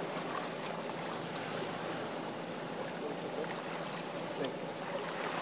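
Steady rushing outdoor background noise, with faint scattered distant sounds over it.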